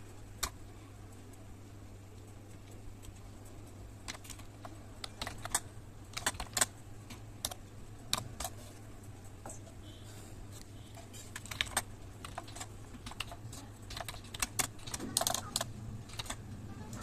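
Typing on a computer keyboard: scattered key clicks, a few at first and coming faster from about four seconds in, over a low steady hum.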